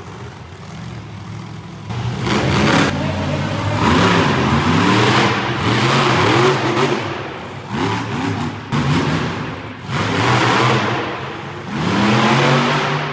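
Monster truck engines revving hard in repeated surges, the pitch climbing and falling with each stab of the throttle. It is quieter for about the first two seconds, then loud.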